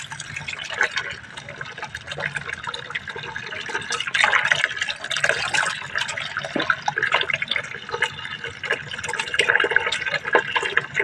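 Water splashing and sloshing in a tub as a hand stirs and lifts squid, with irregular drips and small splashes throughout.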